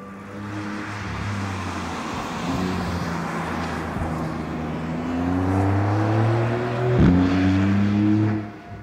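Porsche 911 Carrera GTS's twin-turbo flat-six engine accelerating hard. It runs steadily at first, then the revs climb, drop sharply with an upshift about seven seconds in, and climb again before the sound cuts off near the end.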